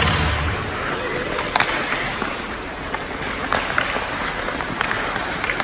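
Ice hockey game in a rink: skates scraping the ice, with sharp clacks of sticks and puck and faint voices from players and spectators. Arena music stops about half a second in.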